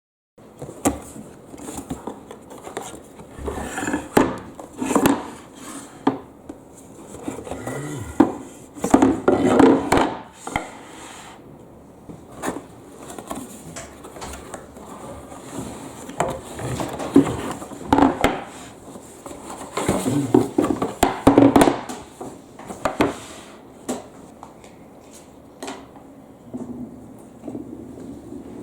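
Glass marbles rolling and clattering down a HABA wooden zigzag marble run, a stream of irregular clicks and knocks that comes in bursts, loudest around nine to ten and again around twenty-one seconds in.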